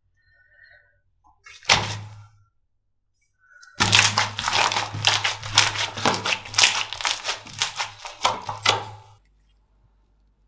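Slime being squished and pressed: one sharp pop a little under two seconds in, then about five seconds of dense, irregular crackling and popping that stops suddenly.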